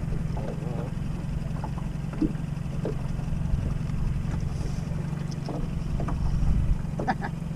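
A boat motor runs steadily with a low, even hum. A few faint short sounds come over it.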